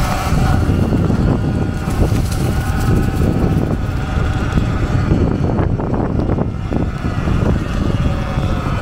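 Sur Ron X electric dirt bike riding over grass and sidewalk: a steady low rumble of tyre and wind noise with a faint, even electric motor whine above it. A few brief knocks come about five to seven seconds in.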